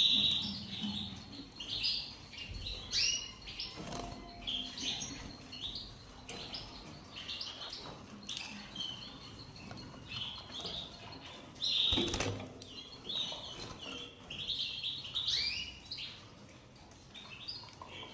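Unweaned young canaries chirping over and over in short high calls, with occasional bursts of wing flapping, sharpest about 4 and 12 seconds in.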